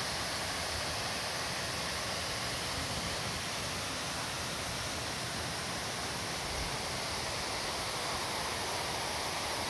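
Waterfall cascading over stepped rock ledges into a pool: a steady, even rush of falling water.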